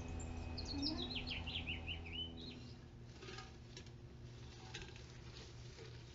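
Small birds chirping in quick, high notes that slide downward, for the first two seconds or so. After that come faint rubbing and light scraping sounds from a gloved hand on a stainless steel pot.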